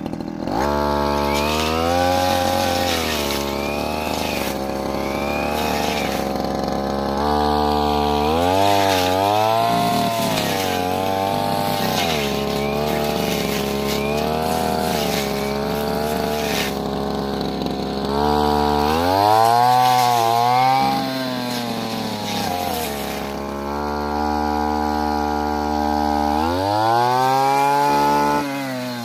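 Stihl brush cutter engine running at high revs while cutting brush. It revs up just after the start, its pitch dips and rises again several times, and it drops off right at the end.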